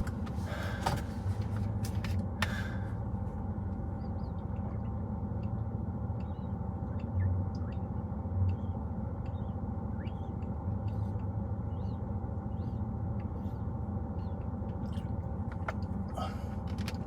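Steady low hum of a car's idling engine and fan, heard from inside the cabin, with a few faint high chirps scattered through it.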